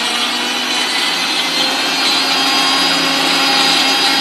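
Electric mixer grinder running steadily with its small jar, grinding garlic into a paste.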